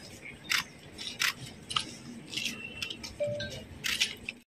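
Quiet background noise with scattered sharp clicks and clinks, one or two a second, dropping out into a brief dead silence near the end.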